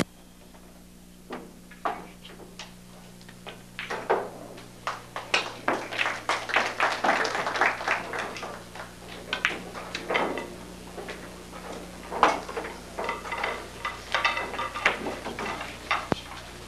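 Pool balls clacking during 9-ball play: cue tips striking, balls knocking together and off the rails, a long run of irregular sharp clicks that is busiest in the middle. A steady low hum runs underneath.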